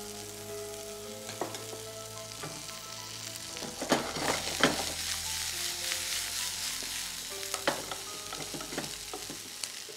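Masala-coated fried fish pieces sizzling in a hot frying pan while a wooden spatula stirs them, with a few sharp knocks and scrapes of the spatula against the pan.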